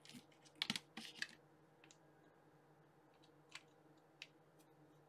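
Very quiet desk work with a few faint clicks and taps from the hot glue gun and loose glue sticks being handled: a cluster in the first second or so, then single light ticks about two, three and a half and four seconds in.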